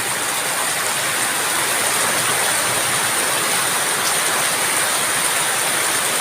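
Heavy rain falling steadily: an even, unbroken hiss of a downpour.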